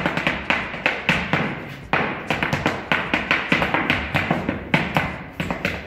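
Zapateo, the stamping footwork of a gaucho folk dance: boot heels and soles striking a dance board in quick rhythmic stamps and taps, several a second.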